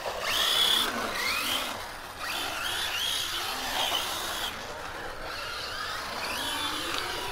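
Electric motor whine of a brushless four-wheel-drive radio-controlled car driving around, the pitch rising and falling again and again as the throttle is worked.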